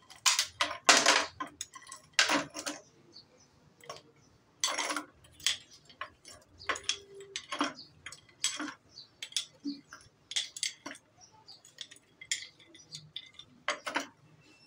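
Steel spoon scooping ice cubes from a ceramic dish and dropping them into drinking glasses: a long run of irregular clinks and clatters of ice, metal and glass, the loudest about a second in.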